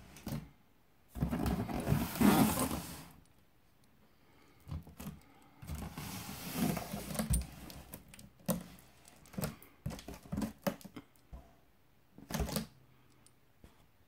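A large cardboard carton being handled and turned by hand: two stretches of scraping and rubbing against the cardboard, the first the loudest, then a run of short knocks and clicks.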